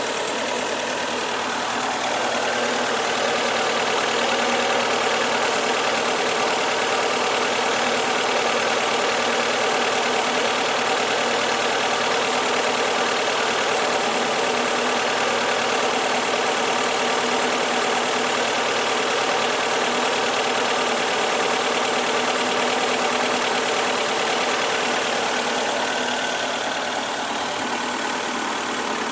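2002 Fiat Stilo 1.6 16V four-cylinder petrol engine running. Its speed rises about two seconds in, holds steady, and eases back near the end. The engine has a faulty lambda sensor (fault code P0130).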